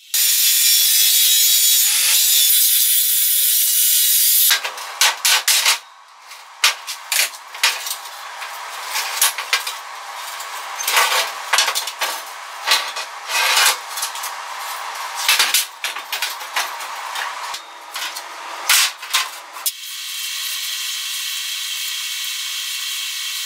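Steady arc-welding hiss on a steel frame for about four seconds, then a long stretch of irregular scraping and rubbing strokes of metal being worked, and near the end a steady hiss again.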